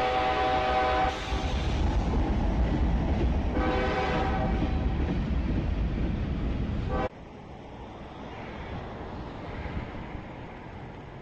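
Train passing with a heavy rumble and its multi-tone horn sounding twice: one blast running into the first second, another about four seconds in. The sound cuts off suddenly about seven seconds in, leaving a much quieter outdoor background.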